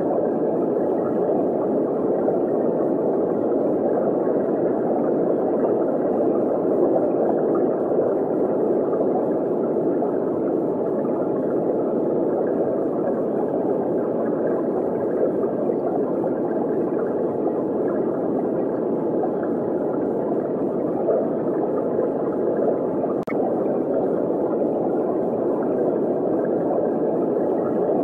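Steady muffled underwater water noise, a low, even rushing sound. A single faint click comes about twenty-three seconds in.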